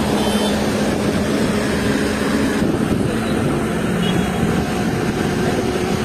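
Mobile crane's diesel engine running steadily, with a constant low hum.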